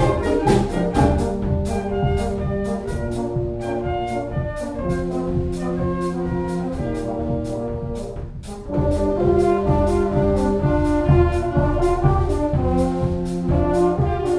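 Youth wind band playing: flute, clarinet, saxophones and French horns with low brass, over a drum kit's steady beat. The music drops briefly about eight seconds in, then comes back louder.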